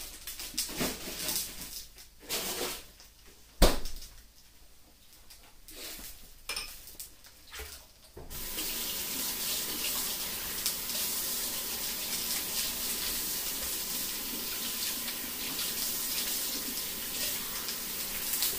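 A few scattered clicks and knocks, then about eight seconds in a kitchen tap is turned on and water runs in a steady rush.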